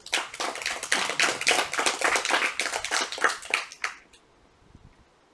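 A small audience of children clapping hands in applause, which dies away about four seconds in.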